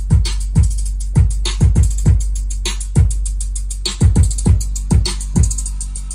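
Bass-heavy electronic dance music played through a DB Audio 3-way speaker with a 10-inch woofer in a sound test: kick drums that fall in pitch, two or three a second, over a steady deep bass note.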